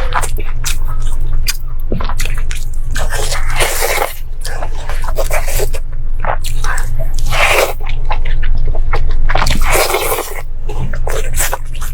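Close-up eating sounds: irregular crunching bites and wet chewing of food, with a steady low hum underneath.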